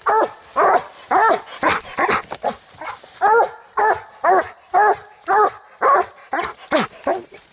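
Coonhound barking treed at the base of a tree: a steady string of short chop barks, about two a second, each rising and falling in pitch. This is a tree bark, the sign that the dog has a raccoon up the tree.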